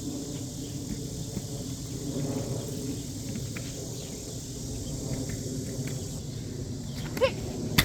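Outdoor summer ambience: a steady high drone of insects over a low rumble. A short pitched call sounds about seven seconds in, and there is a click at the very end.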